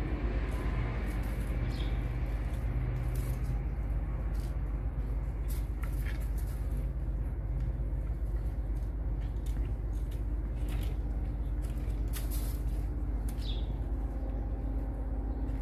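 Steady low outdoor rumble, with a few short, falling high bird chirps now and then.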